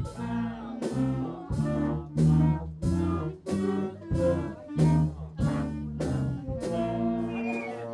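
Fifth-grade school band playing a tune together: held notes over a low bass line, with a sharp drum strike about every half second.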